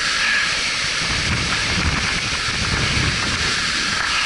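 Steady roar of a large waterfall heard from above, with wind buffeting the microphone as a low rumble through the middle.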